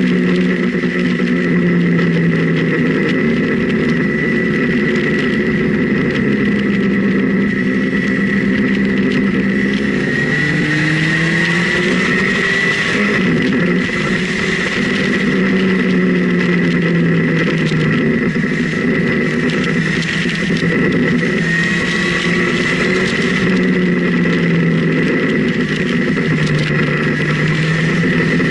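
Motorcycle engine running under way through a series of bends, its pitch rising and falling several times as the rider accelerates and eases off. A steady high whine and a rush of noise run under it.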